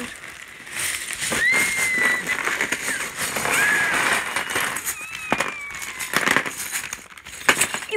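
Clear plastic bag of Lego pieces crinkling and rustling as it is handled, with a few sharp clicks and some brief thin high tones over it.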